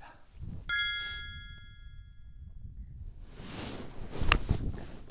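A sharp metallic ding that rings on for about two seconds, then, near the end, the crack of a golf iron (an 8-iron) striking the ball.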